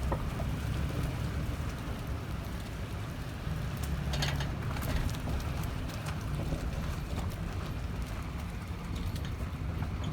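A 2018 Raptor on the move, with a steady low road and drivetrain rumble and scattered rattling clicks over it, bunched together about four seconds in. The clicks are the rattle the owner is trying to track down.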